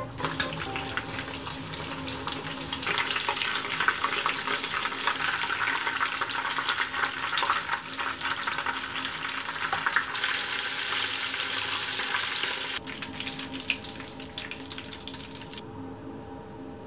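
Spring rolls deep-frying in a small pan of oil: a dense sizzle and crackle like rain, which grows louder a few seconds in. It drops off sharply about three-quarters of the way through and fades out near the end.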